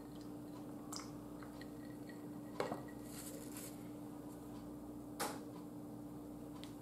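A short drinking glass with an iced drink set down on the table: a few light clinks and knocks, the clearest about two and a half and five seconds in, over a quiet steady hum.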